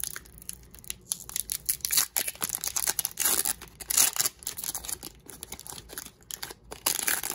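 Foil Pokémon booster pack wrapper being torn open and crinkled in the hands: a run of sharp rustles and crackles, with louder bursts about two, three and a half, four and seven seconds in.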